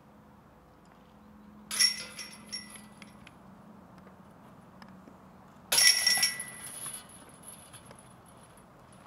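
Two disc golf putts striking the hanging chains of a metal basket, about four seconds apart. Each is a sharp metallic crash followed by a jingling chain rattle; the second is louder and rings on longer.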